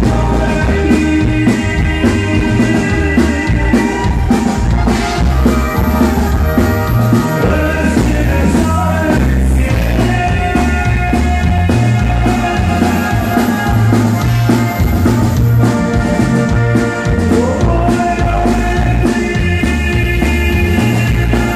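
Live norteño band music: electric bass and drum kit keep a steady beat under guitar and a melody line of long held notes.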